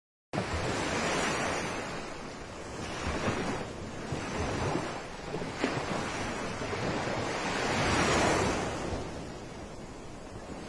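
Sea surf: waves breaking and washing ashore in about four slow swells of rushing noise. It starts suddenly out of silence just after the beginning.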